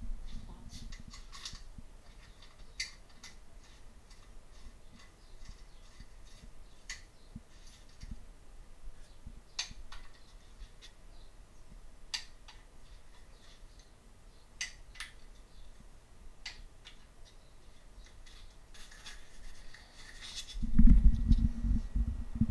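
Sparse light metallic clicks and scrapes of a socket wrench being fitted to and turned on the fuel rail hold-down bolts, tightening them to 89 inch-pounds. A loud low rumble comes in near the end.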